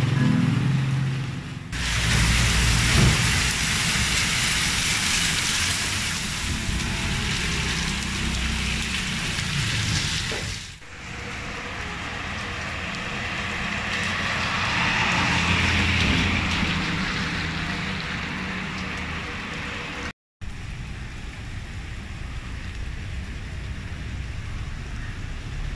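Heavy rain falling on a street, a loud even hiss that begins about two seconds in. It breaks off abruptly about ten seconds in and again about twenty seconds in, and is quieter in the last few seconds.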